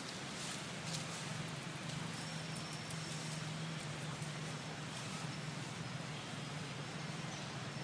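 A steady low hum, like a motor vehicle engine running somewhere near, over outdoor background noise.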